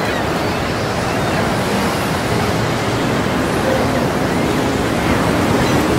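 Steady rush of choppy sea water and wind, an even, unbroken wash of noise: a sea sound effect laid over the footage of a dinghy planing through rough water.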